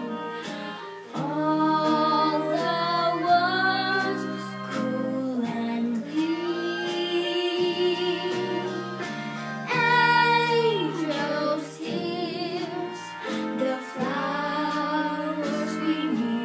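A young girl singing solo over instrumental accompaniment. Her held notes waver with vibrato.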